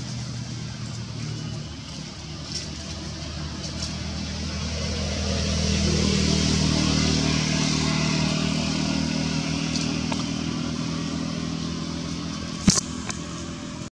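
A motor vehicle engine running in the background. It grows louder over the middle few seconds and then eases off, and a single sharp click comes near the end.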